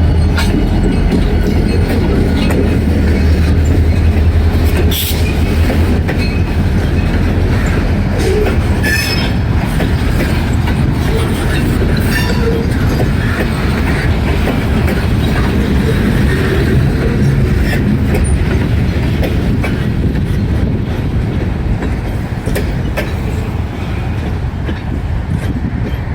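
Slow freight train of boxcars rolling past: steel wheels clacking and knocking over rail joints and the road crossing, with brief wheel squeals. A low diesel engine drone from the lead locomotive fades out in the first few seconds.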